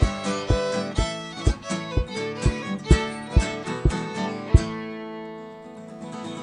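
Acoustic guitar and fiddle playing an Irish folk tune with a strong beat about two strokes a second, ending on a final chord about four and a half seconds in that rings out and fades.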